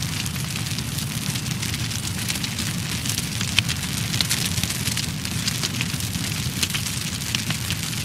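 A fire burning: a steady low rumble of flames with constant irregular crackling, many small sharp cracks every second.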